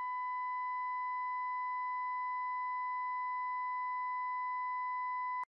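Steady 1 kHz reference tone for calibrating a measurement microphone, with faint overtones above it, cutting off abruptly near the end as the calibration finishes.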